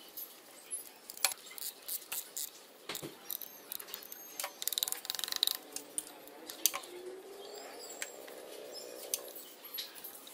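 Scattered metal clicks, taps and clinks of a piston in a piston-ring compressor being worked into an engine block's cylinder bore, with a quick run of rapid clicks about five seconds in.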